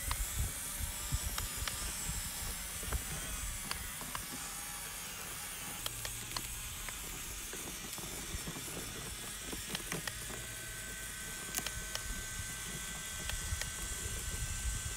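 Small electric motor and gears of an RC crawler truck whirring as it drives over mud and wet ground, with scattered sharp clicks and crackles; a steady high whine sets in about ten seconds in.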